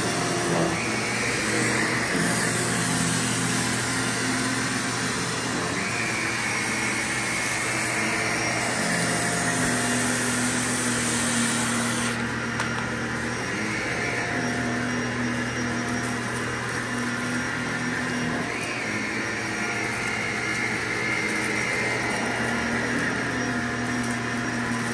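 Vacuum cleaner running continuously while being pushed in slow passes, its pitch shifting every few seconds as the load on it changes. The hiss turns duller about halfway through.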